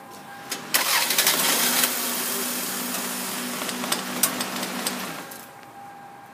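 2001 Toyota four-cylinder engine cranking and catching about a second in, then running steadily, freshly fitted with new spark plugs and plug wires; it starts cleanly, called "starting very good". The engine sound falls away near the end.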